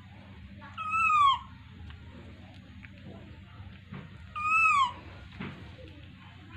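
Baby macaque calling twice: two high cries, each about half a second long and rising then falling in pitch, the first about a second in and the second about four and a half seconds in.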